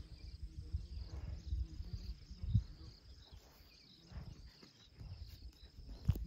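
Insects chirping in a steady, pulsing trill, over low rumbling noise with dull thumps, the loudest about two and a half seconds in and near the end.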